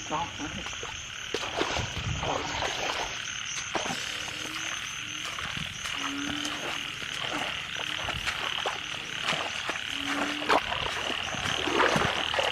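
A chorus of frogs calling: a steady, pulsing high trill, with a short low croak repeating every couple of seconds and a few scattered clicks.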